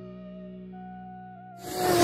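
Background music with sustained held notes. Near the end a loud whoosh swells up, the start of a transition sound effect.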